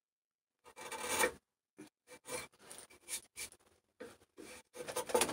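A hand tool shaving birch in a series of short, irregular scraping strokes, starting about a second in and growing louder near the end. It is taking a fine cut to ease a joint that fits a little tight.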